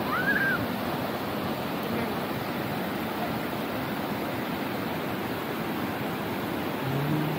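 Steady rush of falling and cascading water from Kegon Falls and the rocky rapids below it, an even noise that does not change. A short high chirp sounds just after the start.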